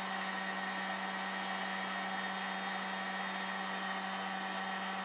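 Electric heat gun left running on its low setting: a steady blowing hiss with a constant low hum.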